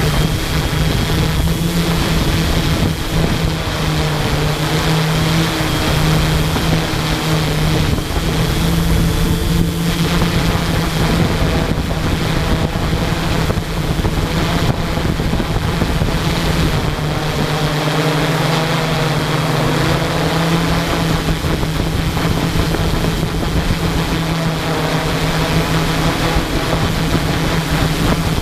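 Multirotor drone's motors and propellers humming steadily close to the microphone, with a slight wavering in pitch and some wind rush.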